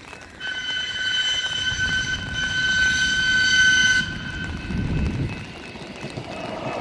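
Light-rail train's horn sounding one long, steady, high-pitched blast that cuts off abruptly after about three and a half seconds. The low rumble of the approaching train follows.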